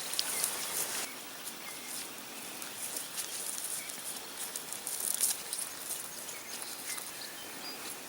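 Irregular rustling footsteps through dry vegetation, with a few faint bird chirps.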